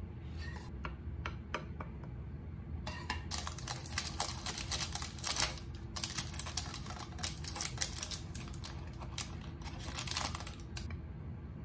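Light crackling and clicking from food being plated, coming in dense clusters from about three seconds in and stopping near the end.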